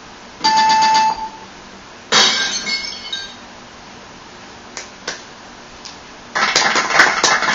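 Sound effects from an app playing through an iPhone's small speaker. First comes a short glassy clink with a ringing tone. About two seconds in there is a sharp crash like glass breaking, and from about six seconds a dense, loud clattering noise takes over.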